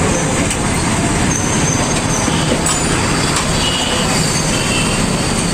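Steady road traffic and engine noise, an even dense rumble, with a few short faint high tones over it.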